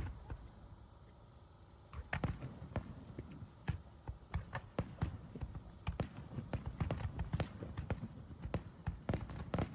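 Footsteps on hard pavement: irregular clatter of several walkers' steps, starting about two seconds in after a single knock at the start.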